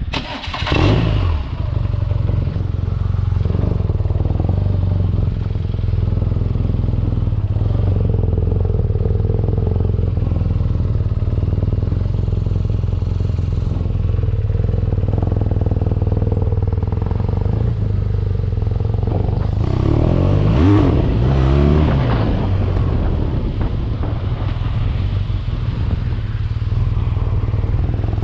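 BMW R nineT Pure's boxer twin engine running steadily, with a brief loud burst about a second in and a rev that rises and falls about twenty seconds in.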